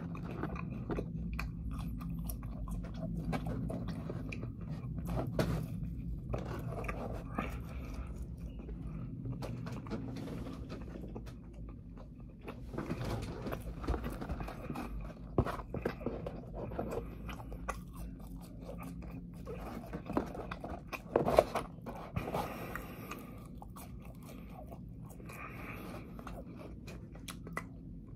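A person chewing a Monte Cristo sandwich and fries close to the microphone, with irregular crunchy bites and mouth clicks. A few sharper crunches come about three quarters of the way through.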